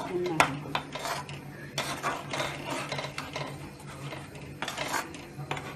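A long spoon stirring a thick, wet masala paste in a metal pot: short scrapes along the pot's bottom and sides, with a few sharp clinks where the spoon knocks the metal.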